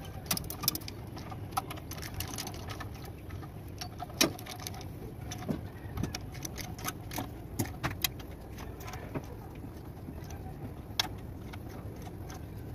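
Irregular sharp metallic clicks and clinks from a ratchet wrench and socket working the bolts of a truck's clutch pressure plate, over a steady low background hum.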